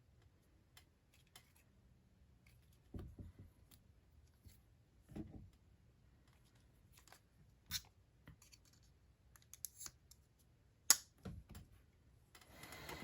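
A Spyderco Shaman folding knife being handled: scattered clicks and light scratchy ticks, a few soft thumps, and one louder click near the end.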